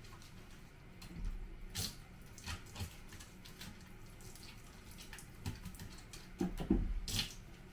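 Water splashing and dripping in a bathroom while a soaking-wet toy poodle's coat is washed by hand, with a few sharper splashes and low thumps about two seconds in and again near the end.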